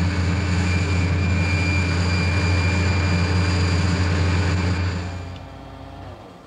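Street-sweeping machine's 1600cc petrol engine and vacuum fan running with a steady low hum and a thin high whine. About five seconds in, the sound dies away as the machine is shut down.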